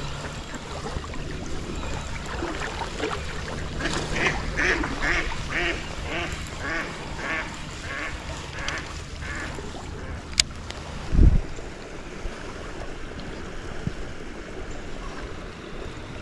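A duck quacking, a run of about nine quacks in a row, over a steady rush of stream water. A sharp click and then a short dull thump follow, the thump the loudest sound.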